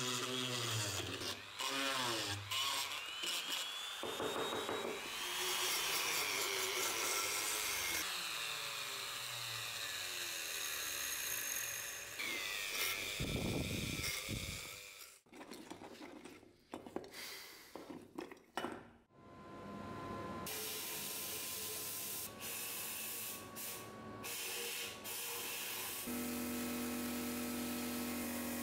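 Hand-held rotary tool whining as it grinds petrified crust out of a corroded metal powder box, its pitch rising and falling with the load, broken by several abrupt cuts. About 26 seconds in it gives way to a steady hiss with a low hum from a sandblasting cabinet.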